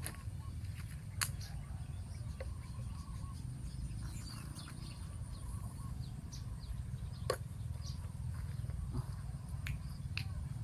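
Steady low wind rumble on the microphone with scattered faint, high, short bird chirps, and sharp clicks about a second in and about seven seconds in.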